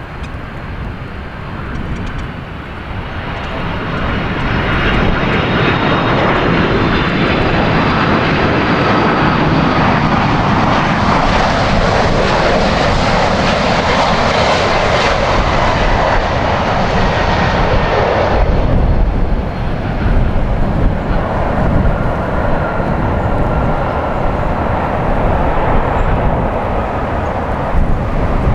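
Boeing 767-300F freighter's twin jet engines on a landing pass. The engine noise builds over the first few seconds to a loud, hissy peak with a steady whine. About 18 seconds in it drops off suddenly, then carries on as a lower, steady rumble.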